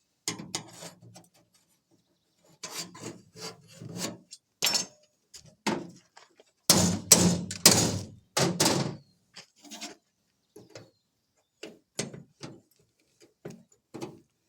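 Short, irregular scrapes and knocks of hand tools worked against thin sheet metal, in uneven strokes with pauses between, loudest in a cluster about seven to nine seconds in.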